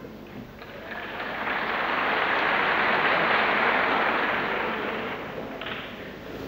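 Theatre audience applauding: the clapping swells for a couple of seconds and then dies away.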